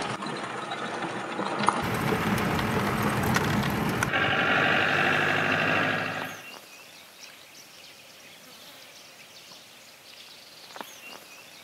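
A vehicle driving over a rough dirt track: rumble and rattle of the ride mixed with engine noise, with a steady whining tone joining in about four seconds in. About six seconds in it gives way to faint outdoor background sound.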